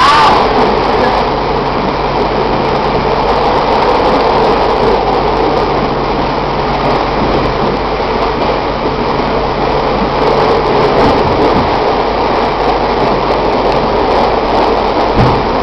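London Underground Central line train running at speed, heard loud and steady from inside the carriage: a continuous rush and rumble of wheels on rails and running gear.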